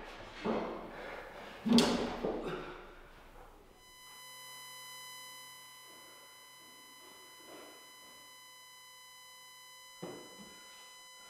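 A wooden chair knocking and scraping on a hard floor as a person shifts against it, loudest in a thump about two seconds in. From about four seconds in, a steady electronic tone with many overtones is held for about six seconds, and the knocking and shuffling return near the end.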